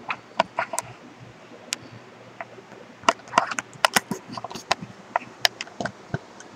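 Irregular sharp clicks and knocks of a handheld camera being picked up and carried, over a faint low steady hum.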